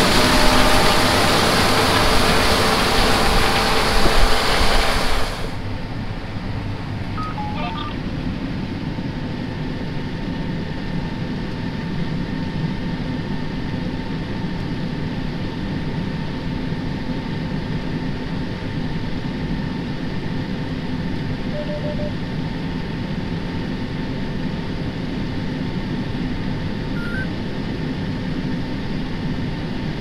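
John Deere S780 combine harvesting corn: loud engine and threshing noise heard up close, which cuts off about five seconds in to the quieter, steady drone of the combine heard inside its cab, with a faint steady whine and a few short electronic beeps.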